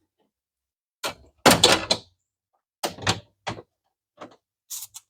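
Cable being pushed into a metal electrical box: a handful of separate knocks and clunks with short rattles. The loudest comes about one and a half seconds in.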